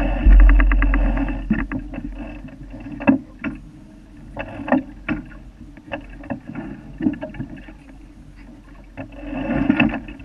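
Sailboat under way: a steady rush of wind and water along the hull, with a heavy low rumble in the first second or so and scattered knocks and clicks from the boat throughout.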